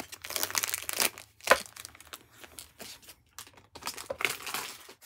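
Foil trading-card booster pack wrapper crinkling as it is torn open, in irregular crackly bursts with a sharp loud crackle about a second and a half in.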